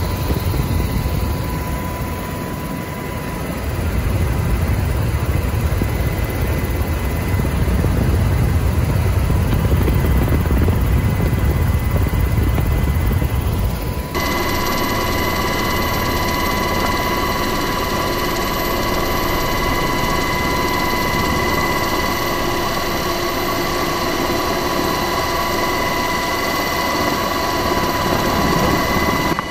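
UH-60 Black Hawk helicopter's rotor and twin turbine engines running steadily, heard from inside the open cabin: a deep rumble with a steady whine over it. About halfway through the sound changes abruptly to a more whining tone with less rumble.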